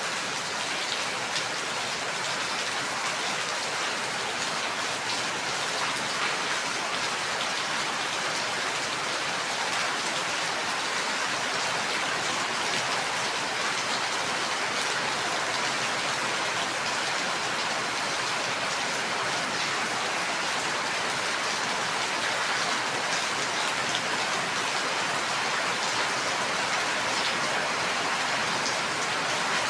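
Steady heavy rain falling, a dense even patter of drops on a surface.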